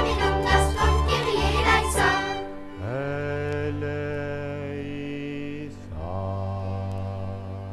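Traditional Québécois folk music ending a song: a couple of seconds of lively, rhythmic playing, then a long held closing chord and a second held chord that fades out.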